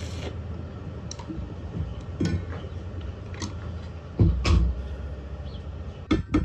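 Stick-welding arc from a 5/64 in 6013 electrode on thin square steel tubing, crackling and hissing, cuts off just after the start. After it come only a few faint, scattered ticks and one low thump a little over four seconds in.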